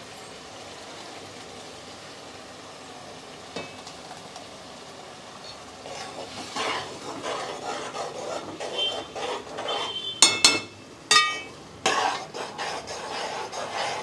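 A spoon scrapes tomato paste out of a stainless-steel mixer-grinder jar into a cooking pan. About ten seconds in, a few sharp metallic knocks ring out, steel striking steel as the jar is tapped and scraped clean.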